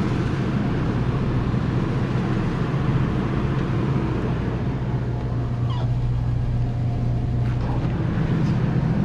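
Steady low hum under a rushing background noise, from the refrigerated display coolers and store equipment.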